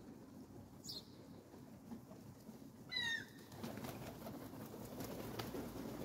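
Birds' wings flapping, a rough fluttering that runs through the second half, with a short high chirp about a second in and a loud downward-gliding bird call about three seconds in.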